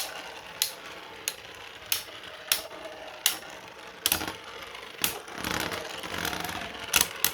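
3D-printed beyblades spinning in a stadium, knocking together with sharp plastic clacks roughly every half second to second, over a steady faint whir.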